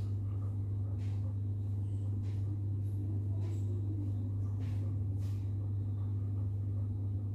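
A steady low hum, with a few faint soft clicks over it.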